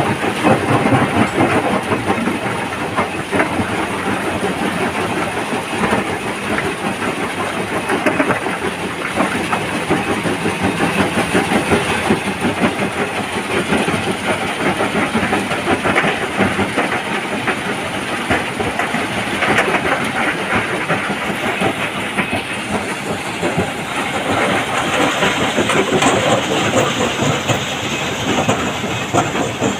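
Stone crusher running, with a continuous dense clatter of rock being fed through and broken, many small knocks over a steady mechanical rumble.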